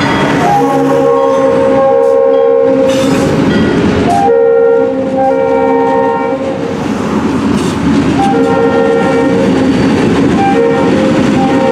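A multi-chime diesel locomotive horn sounds three long blasts, the last still going at the end. Underneath is the steady rumble of several diesel freight locomotives passing close by.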